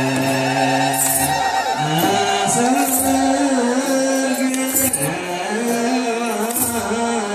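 Ethiopian Orthodox wereb chant: sung voices holding long, wavering notes over a slow, even beat, with a low drum stroke and a high jingling sistrum shake landing together about every two seconds.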